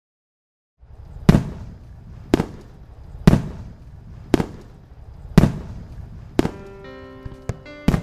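After a moment of silence, six firework bangs about a second apart, each followed by a short fading rumble. Music with held notes comes in near the end.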